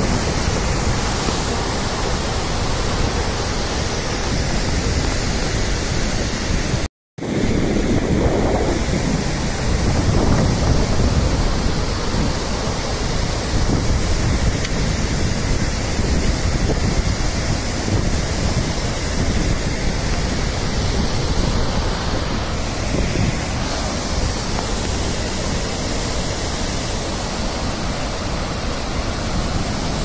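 Bharachukki Falls in full flood: a loud, steady rush of heavy falling water, with wind on the microphone. The sound cuts out for a split second about seven seconds in.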